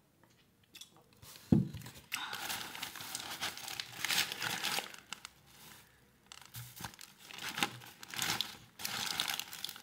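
Paper sandwich wrapper crinkling and rustling as it is handled and pulled open, in two long stretches with a pause between. A single thump comes just before the crinkling starts.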